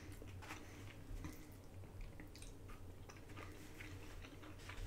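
Faint wet chewing and small mouth clicks of a person eating, with light scrapes and taps of wooden chopsticks picking at food in a foam takeout box.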